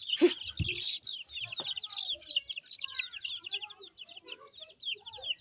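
Young chickens peeping steadily: quick, high, falling cheeps, several a second, thinning out toward the end. A brief rustle comes in the first second.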